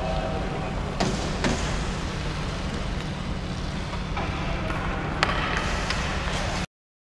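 Ice hockey rink during play: a steady low hum of the arena, with a few sharp clacks of sticks and puck, at about one second, a second and a half, and five seconds in. The sound cuts off suddenly near the end.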